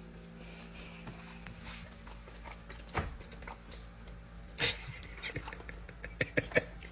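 Dog making small noises: a few short sharp sounds about three seconds in and near five seconds, then several close together near the end, over a low steady hum.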